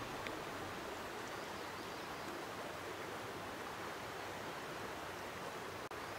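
Steady rushing of flowing river water, even and unbroken, cutting out for an instant near the end.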